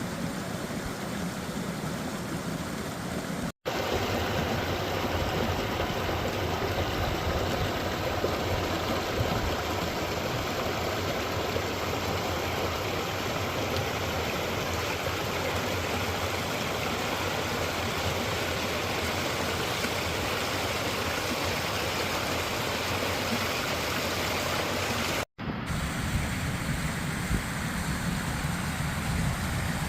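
Forest stream water rushing steadily over rocks. The sound drops out for an instant a few seconds in and again near the end, and is louder in between.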